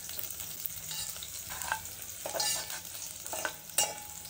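Sliced onions frying in oil in a metal pot, with a steady sizzle, while a metal spoon stirs and scrapes them around the pot. A few of the strokes clink and ring against the metal, the loudest a little before the end.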